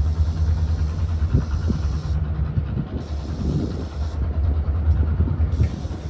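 Diesel locomotive engine running with a steady, low rumble as the train approaches.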